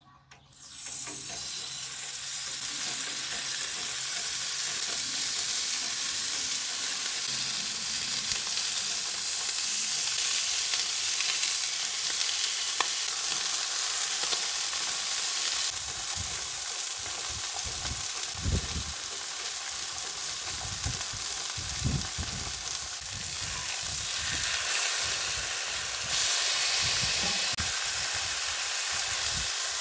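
Raw bacon strips sizzling and frying on a hot flat-top griddle: a steady hiss that starts about a second in and carries on throughout.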